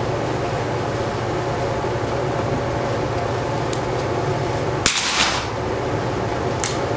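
A single .22LR shot from a Schultz & Larsen target rifle, a sharp crack about five seconds in with a brief echo, over the steady hum of ventilation.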